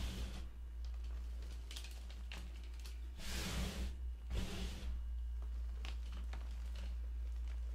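Hands scooping and squeezing loose powdered purple gym chalk: a soft, crunchy rustle full of small crackles, with two louder swishes about halfway through. A steady low hum runs underneath.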